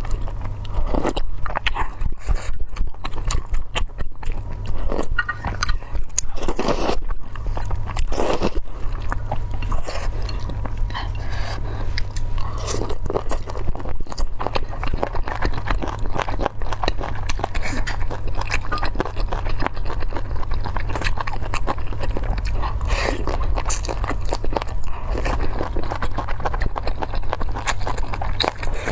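Close-miked eating: steady chewing and biting of food, with many short crunches and a few louder bites.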